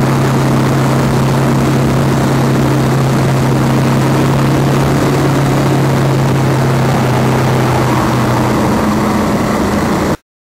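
Motorcycle engine running at a steady cruising speed, heard from a camera on the bike, under heavy wind noise on the microphone. It cuts off abruptly near the end.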